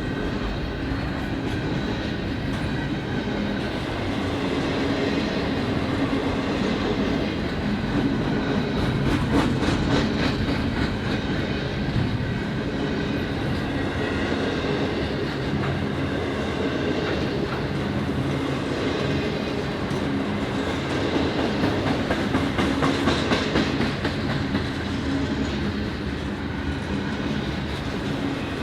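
Union Pacific double-stack intermodal freight train rolling past, a steady clatter of car wheels on the track with repeated clicks.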